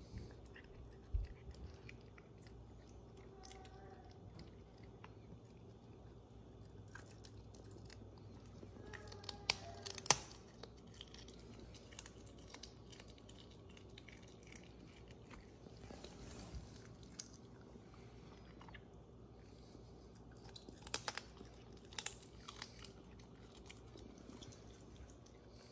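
A cat chewing raw quail held in a hand: steady wet chewing with a few sharp crunches, loudest about ten seconds in and again about twenty-one seconds in.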